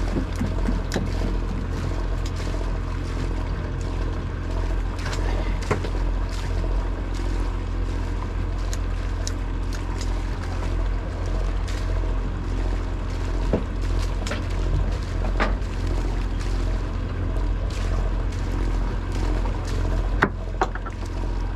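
A party fishing boat's engine drones steadily with a constant low hum, with a few short clicks on top.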